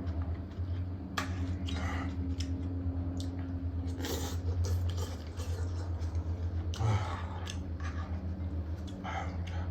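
Close-miked eating sounds of someone eating ramyun: chewing and mouth noises in short bursts every second or two, over a steady low hum.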